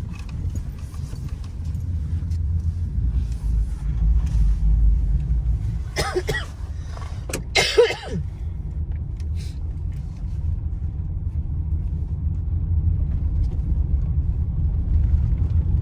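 Car running on the road, a steady low rumble heard from inside the cabin. Two short noisy bursts stand out about six and eight seconds in, the second the loudest.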